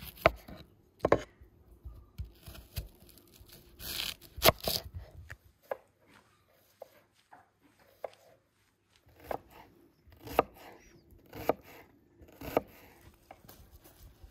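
Kitchen knife cutting through raw onions and knocking on a wooden cutting board, in irregular strokes that settle into about one cut a second near the end.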